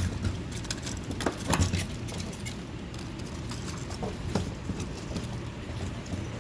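A few light clicks and knocks from fuel-pump parts being handled, over a steady low hum.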